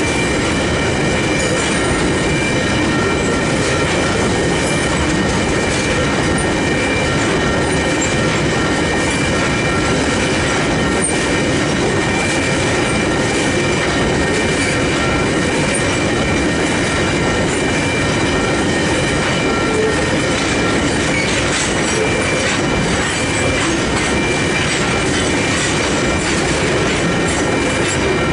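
Long freight train of hopper wagons rolling steadily past at a level crossing, its wheels rumbling and clattering on the rails. The crossing's Western Cullen Hayes electronic bells ring continuously over it, with a high repeating tone.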